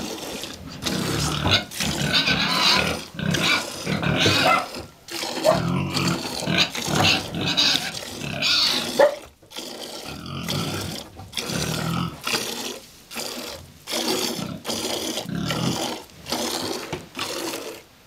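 Hand-milking a cow: jets of milk squirting into a pail in a steady rhythm, about two squirts a second.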